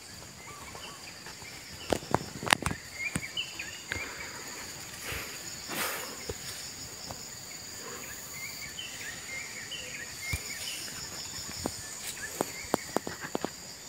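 Steady high-pitched drone of insects such as crickets, with short chirps over it, and scattered clicks and rustles of footsteps and handling as the recordist moves between the plants, most of them around two to three seconds in and near the end.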